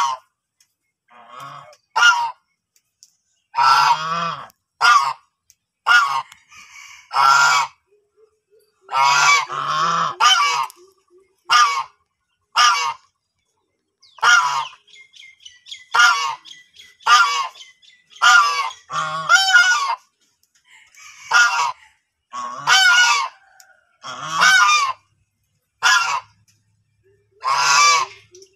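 White domestic geese honking: loud, short calls about once a second, now and then two in quick succession.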